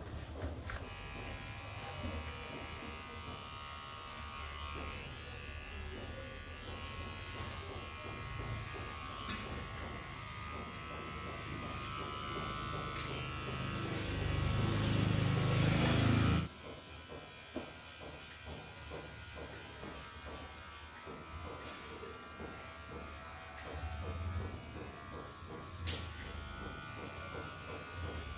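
A steady buzz. A louder rushing, rumbling sound builds over a few seconds and cuts off abruptly about sixteen seconds in, leaving a fainter buzz.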